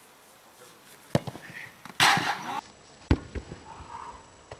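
A football kicked hard from a free kick: a sharp thud about a second in, then a short loud rush of noise, and a second sharp knock about two seconds after the kick.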